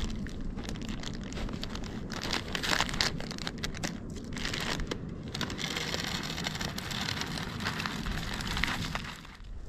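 A crinkling plastic packet being handled while dry seeds pour and patter into a wooden bird feeder, a dense crackle that dies away near the end.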